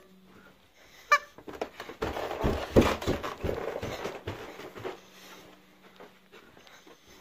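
A rubber chicken gives one short squeak about a second in, followed by a few seconds of rustling and handling thumps, loudest in the middle, as it is carried and waved about.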